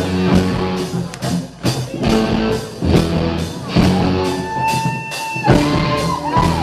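Live rock band playing loudly: electric guitars over steady drum hits, with a long held high lead note a little past halfway that bends before it ends.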